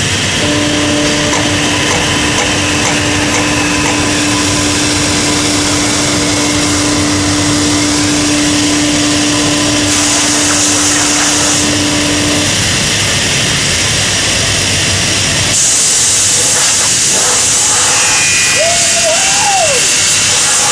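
Loud steady machinery noise of an aluminium casting machine in a foundry, with a steady tone over the first twelve seconds. Bursts of hissing come about ten seconds in and again from about fifteen seconds on, and a short wavering whine sounds near the end.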